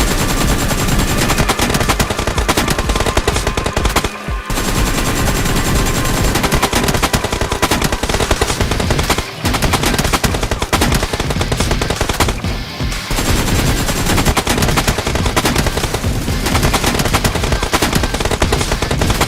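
Rapid automatic gunfire, long strings of shots almost without break, with short pauses about four, nine and twelve seconds in.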